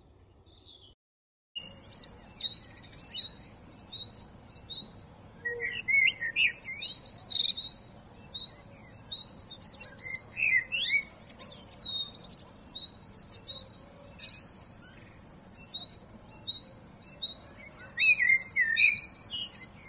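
Several songbirds singing and chirping together, one of them repeating a short high note about twice a second among trills and twittering from the others. The birdsong starts abruptly after a second and a half of silence.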